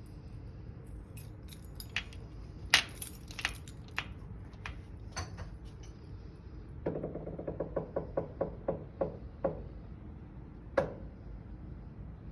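Key and deadbolt lock: scattered metallic clicks and jingles, then a quick run of about a dozen ringing clicks, about five a second, and finally one sharp click. This is the loud noise the deadbolt makes when the key is turned.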